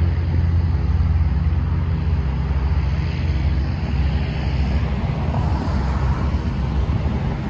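Single-engine Cessna Caravan floatplane's PT6A turboprop and propeller at takeoff power as it climbs away after liftoff: a steady drone that slowly grows fainter.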